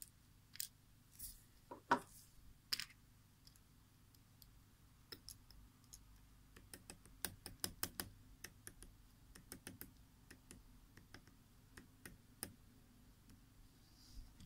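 Faint sharp taps of plastic on plastic as the webcam's lens cover is pressed onto the barrel. About five seconds in, a quick run of small clicks follows as a precision screwdriver turns a tiny screw into the plastic lens housing; it thins out to single clicks near the end.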